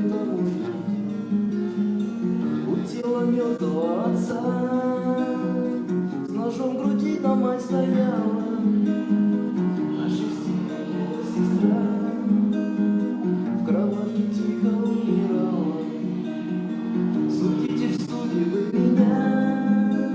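Acoustic guitar strumming and picking chords, with a melody line rising and falling above them.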